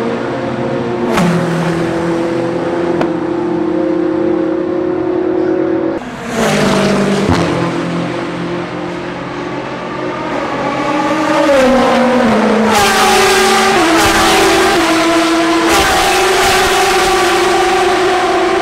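Race car engines running past on the front straight, with a break in the sound about six seconds in. From about twelve seconds in the engine note is louder and steps down in pitch several times.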